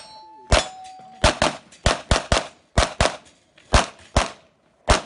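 Rapid 9mm pistol fire from a Walther PPQ Q5 Match SF: about eleven shots in quick, uneven pairs and strings. A short metallic ring follows the first shots.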